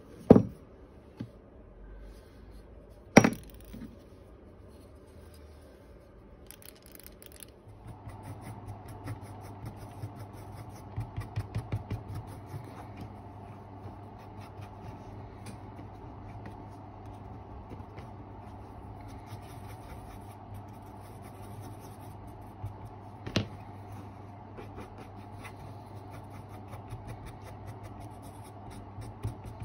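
Two sharp knocks of hard objects set down on a workbench, then a wooden stick scraping and stirring paste on cardboard in short repeated strokes over a steady low hum, with one more sharp knock about twenty-three seconds in.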